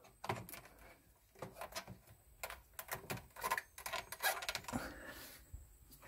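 Scattered light clicks and knocks of hands working at a rack server's chassis while the power cord is plugged in, with a brief rustle about five seconds in. The server's fans have not started.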